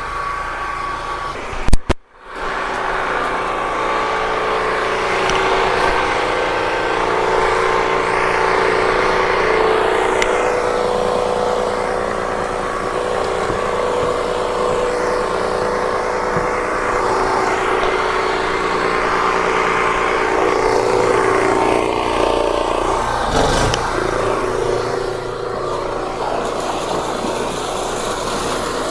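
3,200-watt portable gasoline generator running steadily under the load of an electric submersible pump, which is pumping water out through its discharge hose. A sharp click and a momentary drop in sound about two seconds in.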